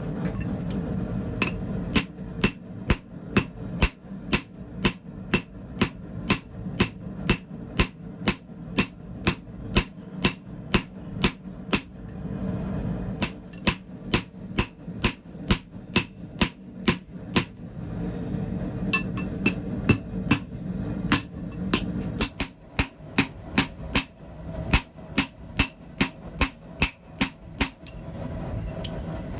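Hand hammer striking a bar of hot D2 tool steel on an anvil: a steady run of sharp blows, about two to three a second, with a few short pauses. A steady low hum runs underneath.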